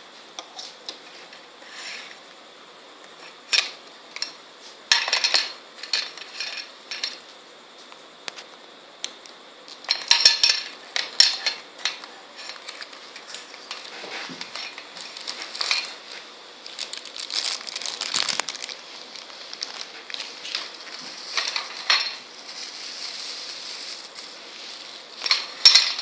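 Clear hard-plastic packaging and a small plastic MP3 player being handled and set down on a wooden table: irregular clicks, taps and crinkling rustles, with louder bursts of crinkling now and then.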